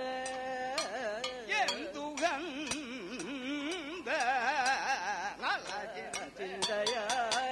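Male Kathakali singer singing a slow, heavily ornamented line in raga Bhairavi, his pitch oscillating widely around held notes. Sharp metallic strikes of the chengila gong and ilathalam cymbals keep time underneath.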